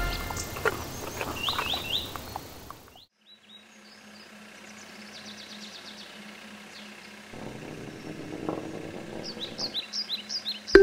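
Birdsong ambience: short rising chirps near the start and a flurry of quick chirps near the end, with a low steady hum through the middle.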